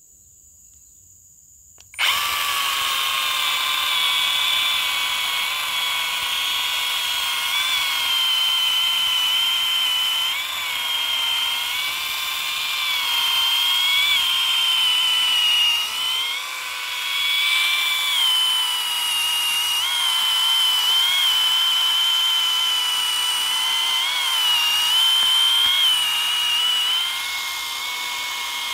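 Modern M58 battery-powered mini chainsaw switching on about two seconds in and cutting into a tree trunk: a steady electric whine of motor and chain, its pitch dipping and wavering as the bar bites into the wood.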